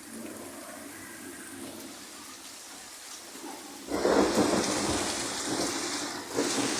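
Rain falling in a thunderstorm, then about four seconds in a sudden loud crash of thunder that rumbles on, eases briefly and swells again near the end.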